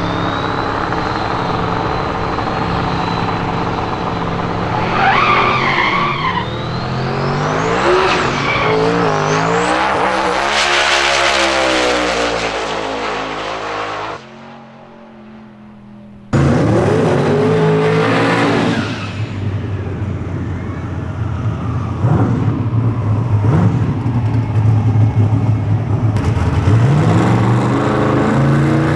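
Twin-turbo V8 Mustang drag car at full throttle down the strip, its engine pitch climbing in stages. After a sudden drop the engine is loud again near the start line, with the revs rising near the end.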